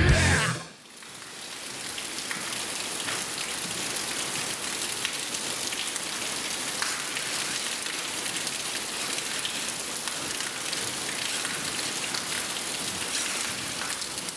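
The punk band's music cuts off about half a second in. Steady rain then fills the rest: an even hiss with scattered drop ticks that swells up over a second or so and holds.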